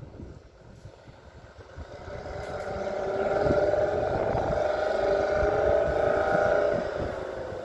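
A motor vehicle's engine hum grows louder from about two seconds in, holds steady for a few seconds, then fades near the end.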